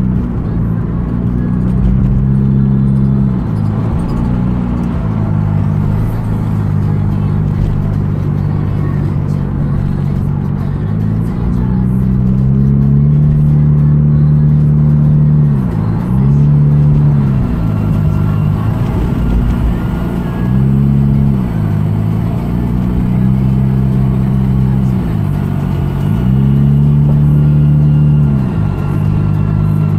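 Car engine and road noise heard inside the cabin while driving, the engine's hum rising and falling in pitch several times as the car speeds up and eases off.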